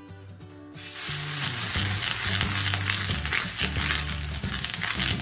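A hot dosa griddle sizzling loudly as a wet cloth is wiped across it. The sizzle starts about a second in and runs on steadily over soft background music.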